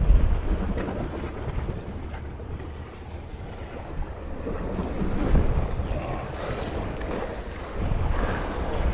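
Wind gusting on the microphone, a low rumble that swells and falls, over the wash of sea surf on shoreline rocks.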